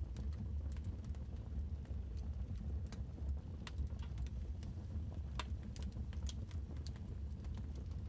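Wood fire crackling in a fireplace: irregular sharp pops and snaps, a few louder ones past the middle, over a low steady rumble.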